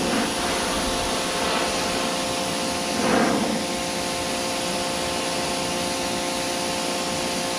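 Powerworks 1700 PSI electric pressure washer running with the trigger held: a steady electric motor-and-pump whine under the hiss of the water jet spraying the house siding. The spray's hiss swells briefly about three seconds in.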